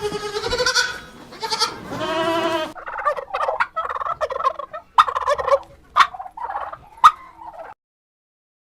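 Farm animals calling: a wavering bleat in the first couple of seconds, then a string of short, rapid calls broken by sharp clicks, which cuts off suddenly near the end.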